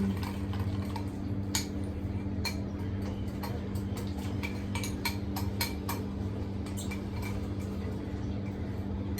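A spoon or whisk clinking irregularly against a bowl while pancake batter is stirred, over a steady low hum.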